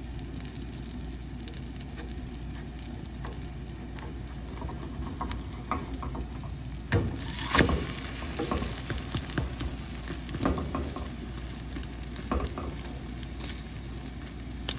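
Egg and sausage pancake sizzling in oil in a frying pan, with a wooden spatula scraping and knocking against the pan. The scrapes and knocks get busier about halfway through and are loudest around seven to eight seconds in.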